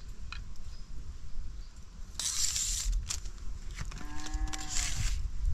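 A single drawn-out animal call, about a second long, about four seconds in, over a low rumble and brief bursts of hiss.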